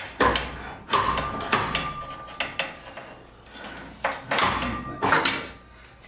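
Steel torsion shaft of a garage door being slid back through its new spring and bearings by hand: a string of metal knocks and scrapes, one of them leaving a short ring.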